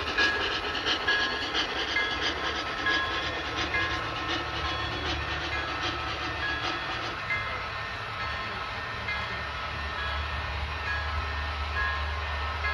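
Model trains running on a layout: rapid clicking and ticking of wheels over the track, busiest in the first half, over a steady low motor hum that grows louder near the end.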